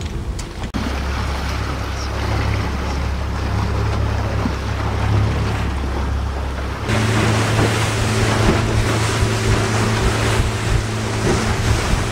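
Boat engine running underway, with water rushing past the hull and wind on the microphone. A low steady drone gives way about seven seconds in to a steadier, higher engine hum with more water and wind hiss.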